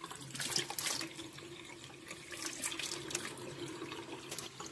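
Water running from a tap into a bathroom sink basin, a steady splashing stream with irregular small splashes.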